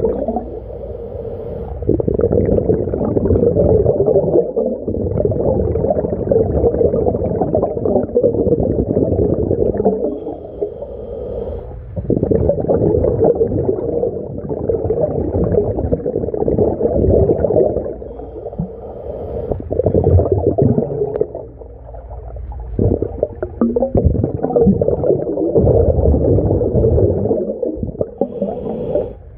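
A scuba diver's exhaled bubbles venting from a mini scuba tank's regulator, heard underwater as a muffled low rumbling gurgle. The bubble noise comes in long stretches broken by short lulls while the diver inhales.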